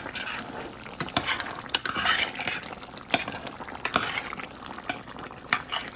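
A spoon stirring curry chicken wings in a pot, clinking against the pot several times over the hiss of the simmering gravy.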